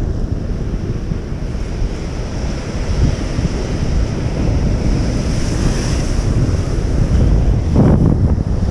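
Sea surf washing against a rocky shore, with wind buffeting the microphone; a louder rush near the end.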